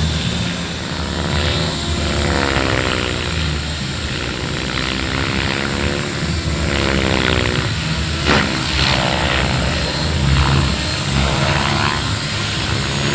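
Turbine engine of a large scale model helicopter running on the ground with the main rotor turning. A steady, loud rush whose tone sweeps up and down every couple of seconds, with a few sharp clicks about two-thirds of the way in.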